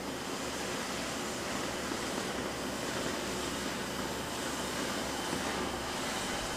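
Oxy-fuel cutting torch on a Linde CM-75 Cadet track burner, with the cutting oxygen on, hissing steadily as it cuts through steel plate.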